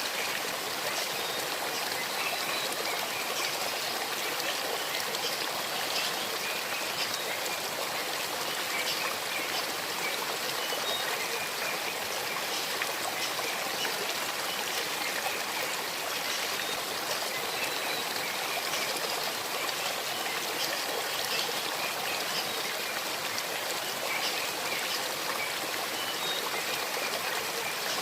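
Small forest stream babbling over stones: a steady, even rush of flowing water with fine trickling detail.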